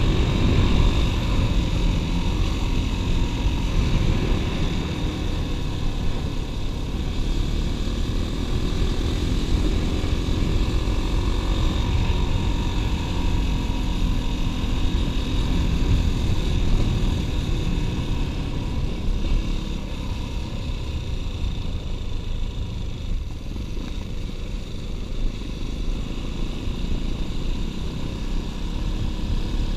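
Steady wind rushing over the microphone of a bike-mounted action camera, with tyres rumbling on a gravel road as the bicycle rolls along.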